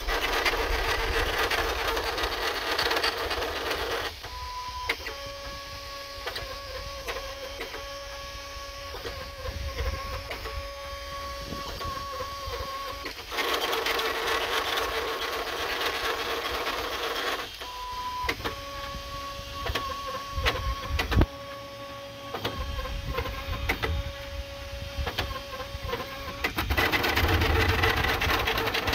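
Leadscrew-driven 3D printer running as it prints, its stepper motors whining through layer moves. Long stretches of steady tone alternate with noisier, rattling stretches, and the pattern repeats about every 13 seconds, each cycle opening with a short higher tone.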